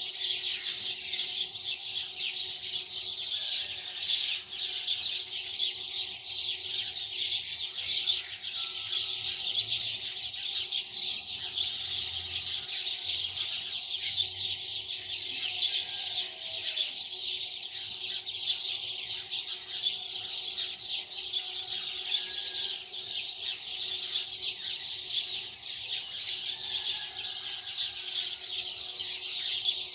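Dense, continuous chirping of many birds, with a faint steady hum underneath.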